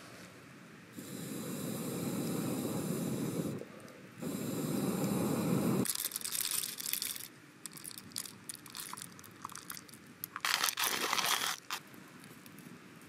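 Stainless hand coffee mill grinding beans: a steady crunching grind in two stretches of a few seconds each, with a short pause between them. Light metal clicks and scrapes follow as the mill is handled, then a brief louder burst of noise near the end.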